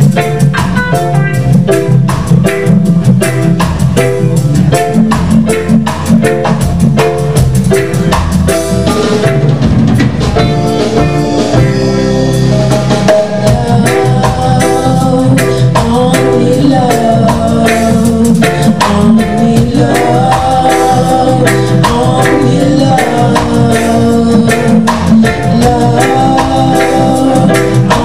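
Live band playing on stage: drum kit, bass guitar, electric guitar and keyboard keeping a steady beat, with a lead singer's voice carrying the melody, most clearly in the second half.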